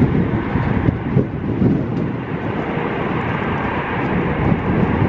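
Antonov An-124's four Progress D-18T turbofans at takeoff power during the takeoff roll, heard from a distance as a steady deep rumble.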